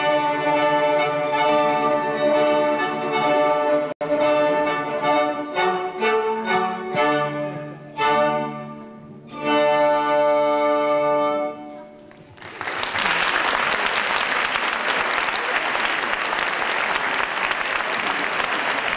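A small string ensemble of violins and cello playing a classical piece that ends on a held chord about twelve seconds in. Steady audience applause follows.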